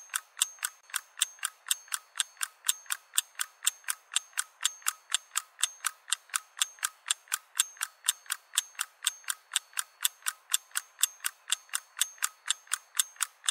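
Steady, evenly spaced mechanical ticking, about four sharp clicks a second.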